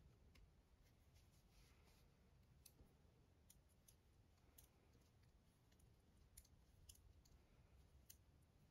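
Faint, scattered clicks of metal circular knitting needles tapping together as purl stitches are worked, over a near-silent room.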